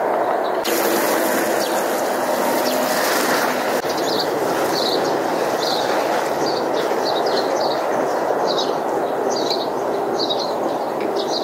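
Water showering from a watering can's rose onto cucumber leaves, a hiss that starts suddenly about half a second in and is strongest for the next few seconds, over a steady rushing background noise. A small bird chirps repeatedly, about twice a second.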